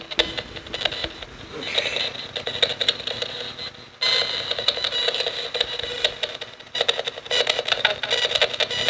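Nanocom Coffin Edition spirit box sweeping rapidly through radio stations: choppy, rapidly chopped static and clipped tones, with a sudden jump in loudness about four seconds in.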